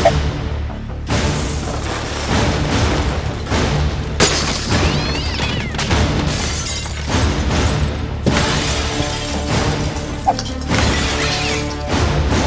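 Background music playing throughout, with several sudden crashes and impacts over it.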